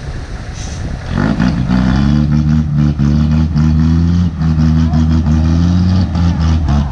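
Dump truck engine revving up about a second in, then running hard at steady high revs with brief small dips.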